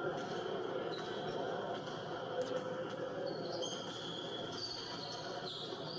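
Sports-hall ambience during a warm-up, heard through a TV's speaker. There are a few scattered ball bounces, and a run of short, high squeaks in the second half. A low murmur of voices sits underneath.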